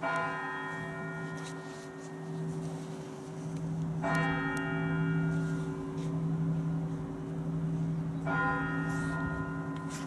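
Large Russian Orthodox church bell struck slowly, three strokes about four seconds apart. Each stroke rings out with a bright clang, and the bell's deep hum carries on between strokes.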